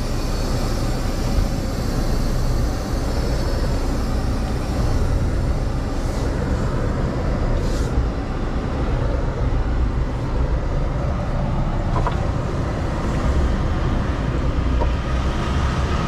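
Semi truck's diesel engine running with a steady low rumble.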